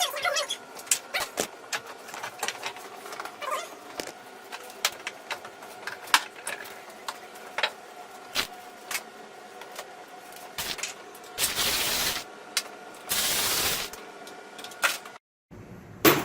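Metal tools clicking and clinking against bolts and engine parts while a turbocharger is unbolted, over a faint steady hum. Two short bursts of noise come about three quarters of the way through.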